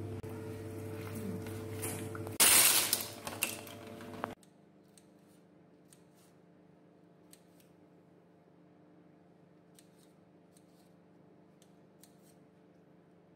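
Metal spoon stirring cornflour-coated chicken pieces in a plastic container over a steady low hum, with a loud scrape about two and a half seconds in. It breaks off suddenly, followed by faint, scattered clicks of a knife on a ceramic plate as green capsicum is sliced.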